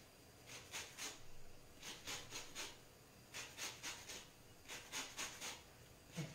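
A lemon rubbed on a flat hand grater to zest it: quick rasping strokes of the rind against the metal teeth, in runs of four or five strokes with short pauses between.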